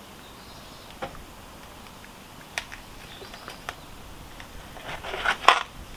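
Metal clinks and scrapes of a wheel wrench being fitted onto a car's wheel nuts to loosen them: a few scattered sharp clicks, then a louder cluster of clinks near the end.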